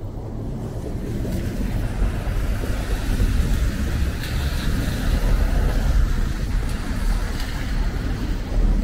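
Street traffic: cars and a van passing close on a wet road, engine and tyre noise that grows louder over the first couple of seconds and then holds steady.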